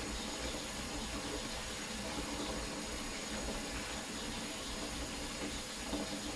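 Kitchen faucet running steadily into a sink full of dishes being washed by hand.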